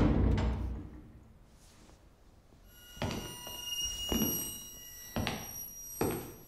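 A deep boom dies away, then after a short near-silence a high, steady metallic ringing sets in, with heavy thuds about a second apart beneath it.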